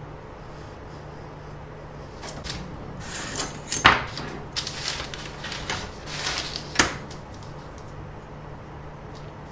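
Rustling and handling noises for a few seconds, with two sharp clicks about four and seven seconds in, over a steady low hum.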